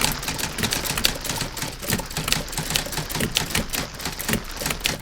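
Vintage typewriter keys clacking in rapid, uneven strokes.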